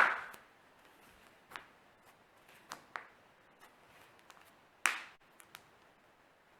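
Joints being cracked by hand: a string of sharp pops and clicks, loudest right at the start and again about five seconds in, with fainter clicks between.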